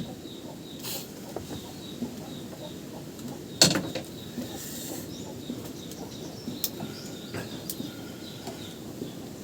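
A few scattered clicks and knocks of small parts and tools being handled: one at the start, the loudest about three and a half seconds in, and a couple of lighter ticks later, over a steady low background.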